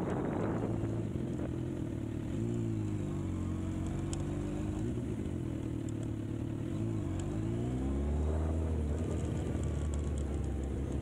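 Motorcycle engine running at low, fairly steady revs, its pitch dipping and rising gently a few times as the bike rolls along.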